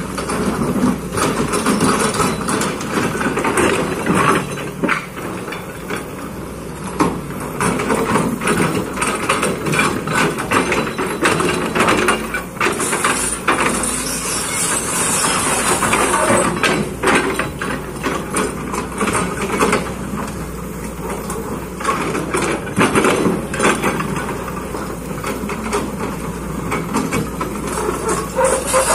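Kobelco excavator working: the engine runs steadily under many irregular metallic clanks and knocks.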